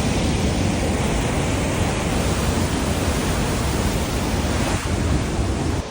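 A waterfall rushing steadily, a dense, even noise heaviest in the low end, which cuts off abruptly at the end.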